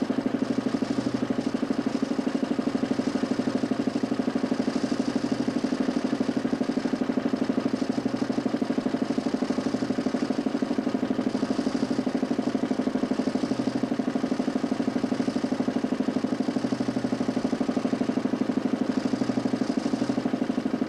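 Homemade mechanical television running: a DC motor spins a 40 cm plywood Nipkow disc, making a steady hum with a fast, even pulsing.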